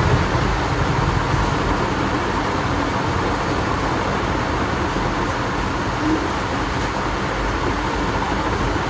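Steady road and vehicle noise: a constant low rumble and hiss, with no sudden events.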